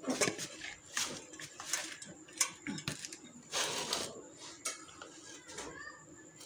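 Metal spoon scraping and clinking against a grinder jar and a plastic bowl as fresh homemade butter is scooped out, in a string of short knocks with a longer scrape near the middle.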